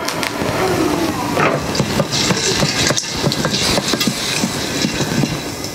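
Stainless steel pot with a glass lid shaken on a gas burner: unpopped glass gem corn kernels rattling and sliding across the oily pot bottom, with the pot scraping on the grate and the lid clattering, a dense run of small knocks throughout.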